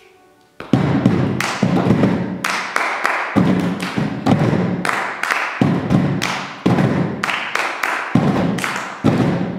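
Hands drumming on upturned plastic storage boxes, mixed with hand claps, in a fast steady rhythm of deep thuds and sharp claps. It starts about half a second in.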